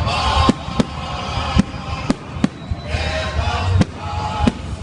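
Festive fireworks salute: shells bursting in a series of about seven sharp bangs, irregularly spaced, over the murmur of voices.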